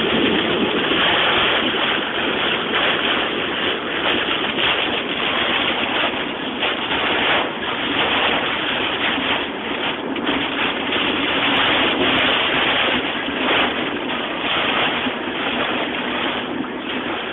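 Heavy storm rain and wind pounding on a moving car, heard from inside the cabin as a loud, steady rushing that surges and eases a little.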